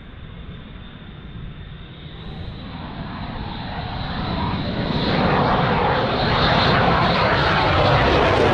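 A fighter jet's engines as it comes in on a low pass: the roar grows steadily louder from about three seconds in, with a high whine over it, and is loud by the end.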